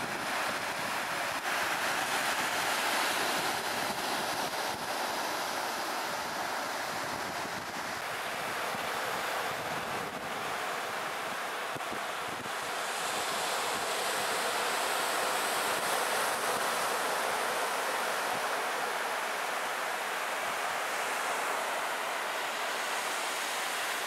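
Sea surf breaking on a sandy beach: a steady rushing wash of waves that swells and eases slowly.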